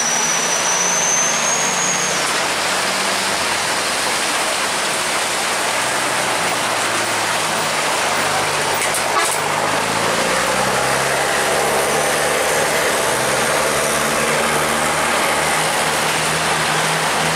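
Heavy rain pouring steadily on a wet road, with truck engines running underneath, their pitch shifting up and down.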